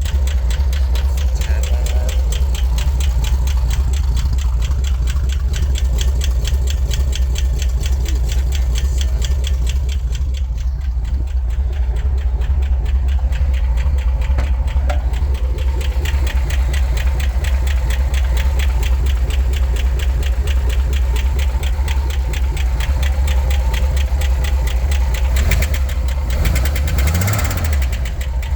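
Chevrolet Corvair air-cooled flat-six idling with a fast, steady lifter tick clattering from the valvetrain. This is cold-engine lifter noise that goes away once the engine is warm.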